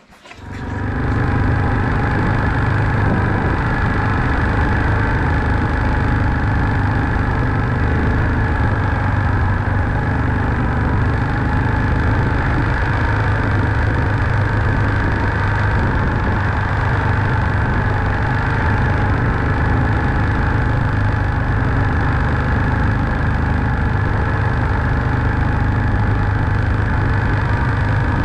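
Farm vehicle engine running at a steady pace while driving along a rough lane.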